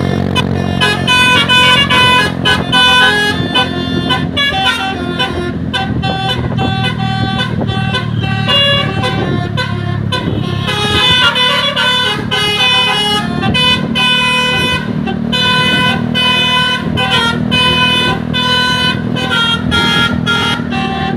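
Bus telolet horns playing quick multi-note tunes, one after another, with the low running of the bus engines beneath.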